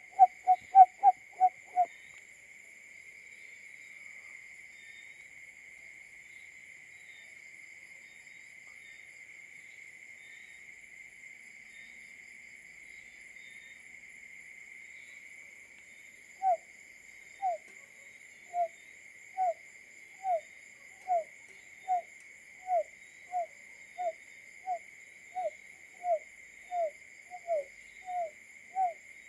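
Barred buttonquail calling. A quick run of low hoots breaks off about two seconds in. After a long pause comes a slower series of short, falling hoots, a little over one a second. A steady high-pitched hum runs underneath.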